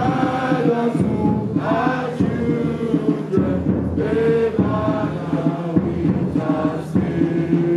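A large group of voices singing a song together in unison, with held notes, backed by drums.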